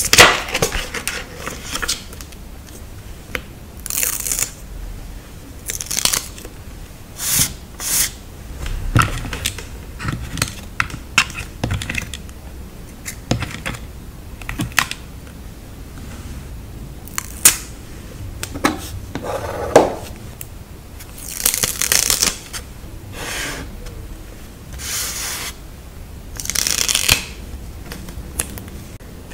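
Paper stickers being peeled off their backing and handled on journal paper: irregular short peeling and rustling swishes with pauses between them, and a few sharp ticks.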